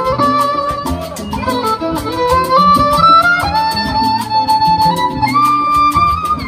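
Live band playing an instrumental passage of Latin dance music: a held melody line moving in steps from note to note over a bass line and a steady percussion beat.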